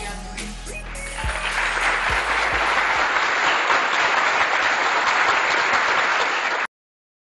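Applause rising about a second in over fading background music with a beat. The applause cuts off abruptly near the end.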